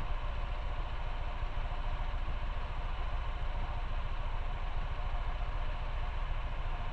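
Motorcycle engine idling steadily with an even low pulse.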